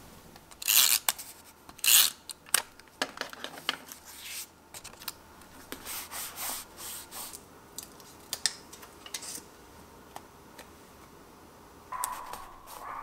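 Paper being handled on a planner page: two loud swishes of paper sliding or rubbing about one and two seconds in, then smaller rustles and light taps, and a short rub near the end as a sticker is pressed down.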